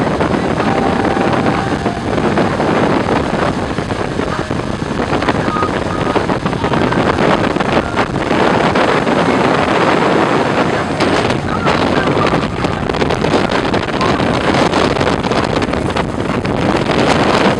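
Twin Suzuki 150 hp four-stroke outboards driving a speedboat at speed, under a steady rush of wake water and wind buffeting the microphone.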